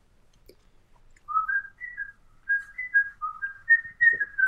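A person whistling a tune in short notes that step up and down, starting about a second in.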